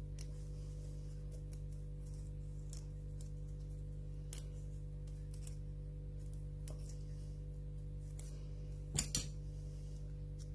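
Light clicks and scrapes of hand work on a vacuum cleaner's brush bar as tangled hair is picked and cut away, over a steady low hum. Two sharper clicks come close together near the end.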